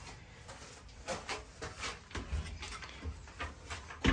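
Hinged wooden lid of a chicken coop's egg-collecting hatch being unlatched and lifted open: faint irregular knocks and rustles of wood and hardware, with a sharper knock at the very end.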